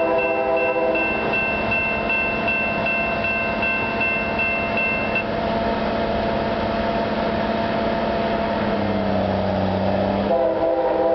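Railroad grade-crossing bell ringing in rapid, even strokes until about five seconds in, when it stops with the gates down. The approaching train's locomotive air horn sounds a multi-note chord at the start and again near the end.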